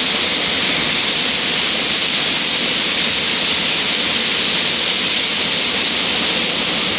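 Water gushing from an outflow into the sea, churning white at the surface, a steady loud hiss without a break.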